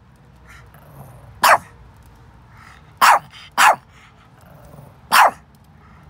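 Small white dog barking: four short, sharp barks, two of them in quick succession about halfway through.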